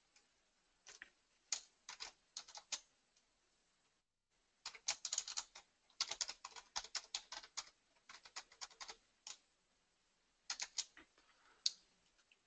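Quiet computer keyboard keystrokes as a password is typed, in irregular bursts of clicks with short pauses between, ending with a single sharper click.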